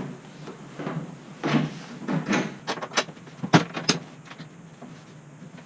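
Several separate clicks and knocks of hardware being handled: long screws and a tank strap being fitted. The sharpest knock comes a little past the middle.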